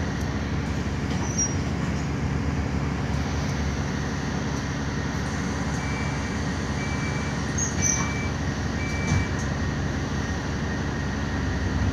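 Alexander Dennis Enviro400 double-decker bus driving, heard from inside the passenger cabin: a steady diesel engine drone with road and body noise.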